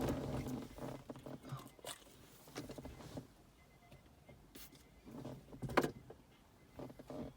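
Scattered light clicks, knocks and rustles of a short shifter's metal parts being handled and worked, with one sharper click about six seconds in.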